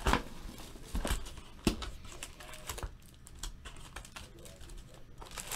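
Wrapped trading-card packs being handled and stacked on a table: light crinkling of the wrappers with a few sharp taps and knocks, the loudest in the first two seconds.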